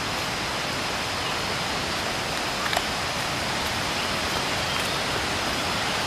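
Thi Lo Su waterfall rushing: a steady, even wash of falling water. There is a short click about halfway through.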